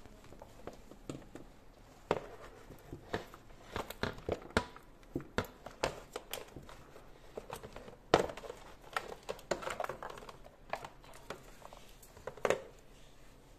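Irregular clicks, taps and crinkling from hands handling small parts during repair work, with a louder knock about eight seconds in.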